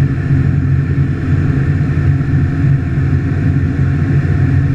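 Evektor light aircraft's piston engine and propeller droning steadily, heard from inside the cockpit.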